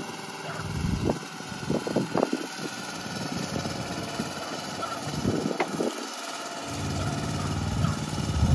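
Small gasoline engine of a motorized shed mover running as it pushes a portable building across a yard, with a few sharp knocks along the way; the engine grows louder near the end.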